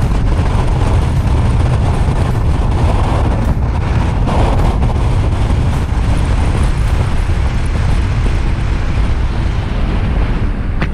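Steady road and wind noise from a moving car, with a heavy low rumble of wind buffeting the camera's microphone.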